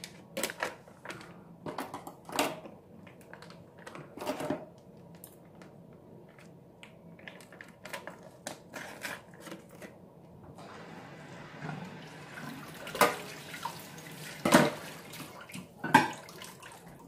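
Crinkling plastic of a vacuum-sealed fish pack being handled and snipped open with scissors in a stainless steel sink. From about ten seconds in, water runs steadily into the sink, with three sharp knocks near the end.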